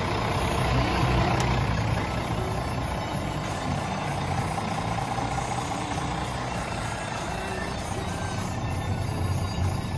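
Scania G410 truck's 13-litre six-cylinder diesel idling steadily.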